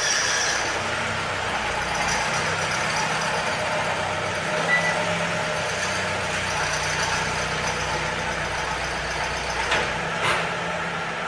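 A car engine running steadily, with two short clicks near the end.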